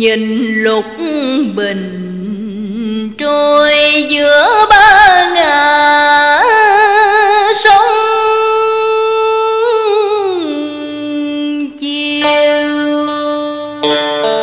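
A woman singing a slow Vietnamese tân cổ (cải lương) song, drawing out long held notes with wide vibrato and sliding between pitches, over a traditional ensemble; quick plucked-string notes come in at the very end.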